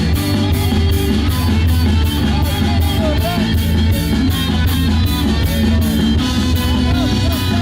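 Rock band playing an instrumental passage of a song live, with electric guitar over bass and drums and an even, driving cymbal beat.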